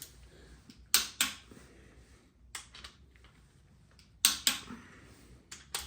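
A few scattered sharp metallic clicks and knocks from tools being handled on a bare engine block, some in quick pairs, with a faint low hum between them.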